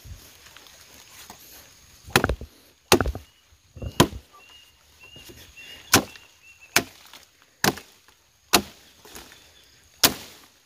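Machete chopping the branches of a felled tree, about eight sharp strikes on wood at roughly one a second, with a short pause midway.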